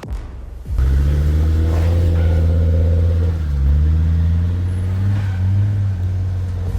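A 4x4's engine pulling at low revs over rough off-road track. It cuts in loudly about a second in, and the revs dip and then climb again around the middle.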